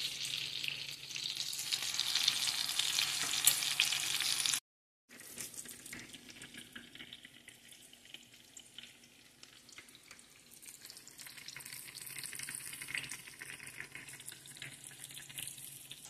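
Chicken patties sizzling in hot oil in a frying pan, loud with crackles for the first four seconds or so. After a brief cut to silence, a fainter, steadier sizzle.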